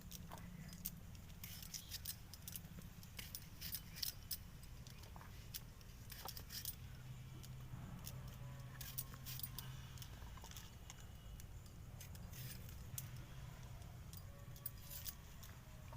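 Scattered light metallic clinks and clicks of kitchen utensils, irregular, over a low steady hum.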